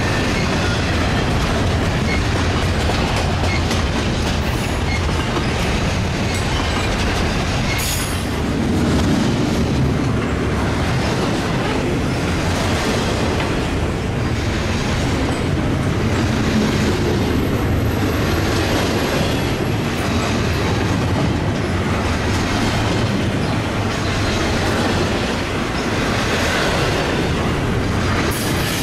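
Freight train passing close by, its cars rolling past with a steady rumble and repeated clicking of wheels over the rails.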